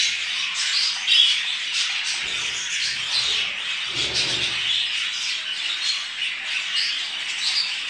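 Many budgerigars in breeding cages chattering and chirping continuously, a dense, high-pitched flock warble.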